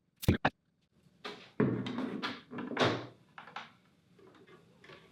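Two sharp clicks, then a couple of seconds of knocking and rubbing as the power adapter and its cable are handled at the FabWash's power port, ending in a few small clicks.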